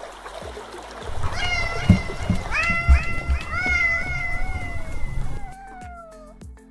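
A cat meowing over and over: drawn-out calls that rise and then sag in pitch, about a second apart and partly overlapping, starting about a second in and turning fainter near the end. Low thuds sound underneath.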